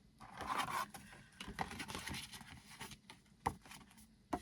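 Makeup packaging being handled: a brief rustle, then light taps and clicks, with a sharper click about three and a half seconds in and another near the end.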